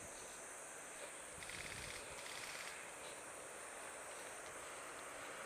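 Insects buzzing steadily at a high pitch, with a faster pulsing trill from about a second and a half in that lasts just over a second.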